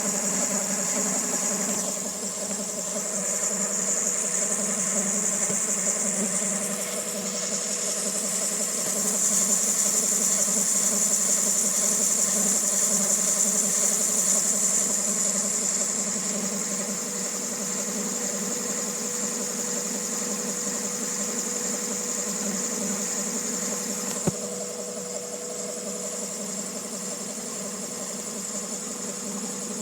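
Honda D16Y8 1.6-litre SOHC four-cylinder engine idling, with a steady high-pitched whine over the engine note and a single sharp click about two-thirds of the way through. The whine is from the engine's front end; the owner asks whether it is the cam pulley, the timing belt tensioner or a bearing.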